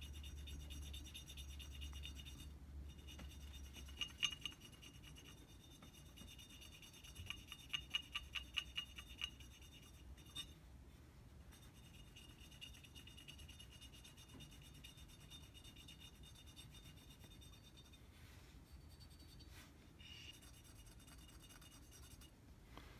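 Cotton swab scrubbing over the engraved markings of an anodized aluminium AR-15 lower receiver: a faint scratchy rubbing, with quick runs of short strokes, about four a second, around four seconds in and again around eight seconds in.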